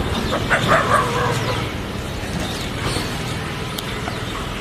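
Stray dogs barking, a few short barks in the first second and a half, over steady outdoor background noise.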